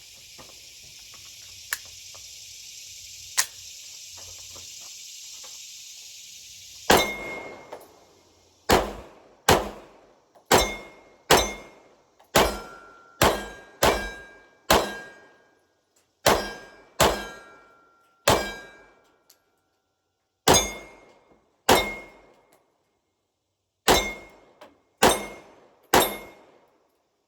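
Glock 17 pistol shots fired one at a time, about seventeen in short strings from about seven seconds in, most well under a second apart, several followed by a brief metallic ring. Before the first shot there is a steady hiss.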